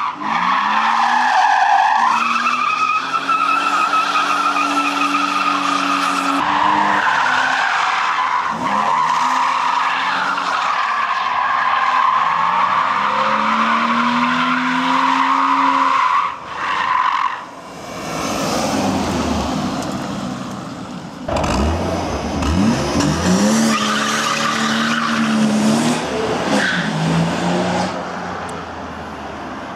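BMW E36 Compact's M50B20 2.0-litre straight-six revving up and down while its rear tyres squeal long and loud through a drift, repeated over and over with a short lull in the middle. The engine is a bit sluggish, which the owner puts down to a short on the camshaft sensor.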